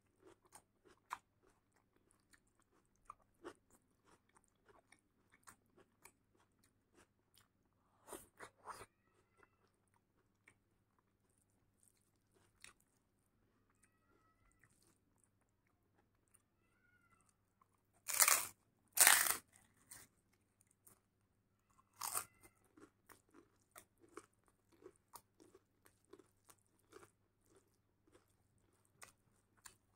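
Close-miked eating sounds of rice and dal eaten by hand: soft, wet chewing and mouth clicks with fingers mixing rice on a steel plate, with a few louder bursts past the middle.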